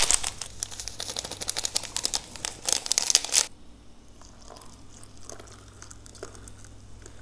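A plastic drink sachet crinkling and being torn open, a dense run of crackles that stops about three and a half seconds in.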